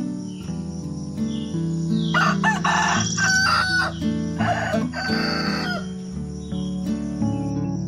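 Rooster crowing: a long crow about two seconds in and a shorter call about five seconds in, over soft background music.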